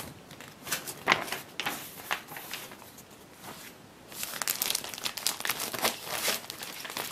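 Clear plastic wrapping crinkling and rustling as it is handled, in irregular crackles that grow busier about halfway through.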